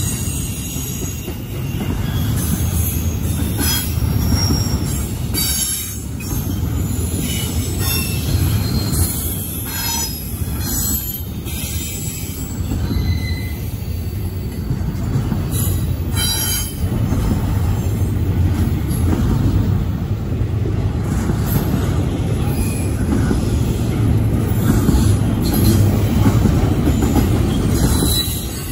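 CSX double-stack intermodal freight train rolling past at speed. The wheels and cars make a steady rumble, with scattered high squeals and clanks.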